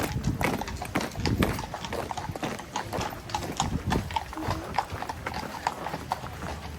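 Horses' hooves clip-clopping on a paved road: a run of sharp, uneven hoof strikes.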